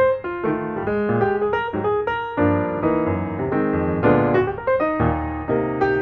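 Background music played on piano or electric piano, struck notes and chords moving along at an even pace.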